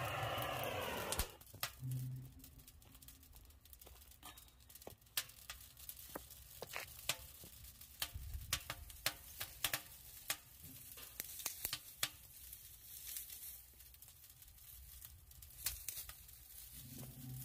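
Wood fire crackling in a steel-drum brazier, with sharp, irregular pops and snaps. A louder steady hiss with a wavering hum cuts off about a second in.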